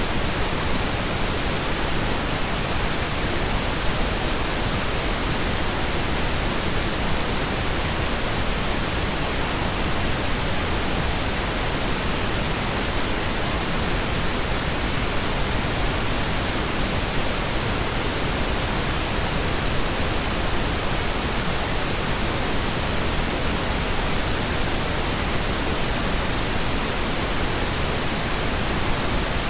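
Steady pink noise: an even, unchanging hiss with no tones, ticks or other events.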